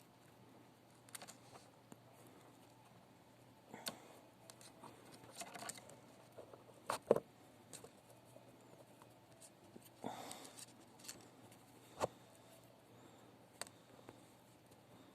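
Faint hand-work sounds: scattered small clicks and light rustling as thin wire is wound by hand around a drill bit, with the sharpest click about seven seconds in and another at about twelve.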